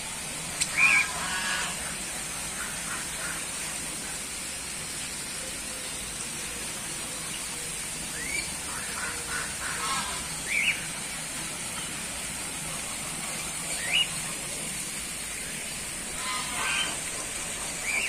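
Ducks quacking in short bursts: once about a second in, several times around the middle, and again near the end, over a steady background hiss.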